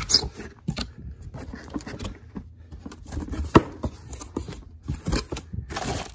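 A cardboard box being opened and unpacked by hand: flaps scraping and rustling, with scattered knocks, the sharpest about three and a half seconds in, and a burst of rustling near the end.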